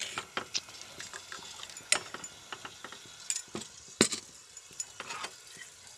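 Scattered light clicks and knocks of metal kitchen utensils and a pan being handled, with a few sharper knocks about two, three and four seconds in.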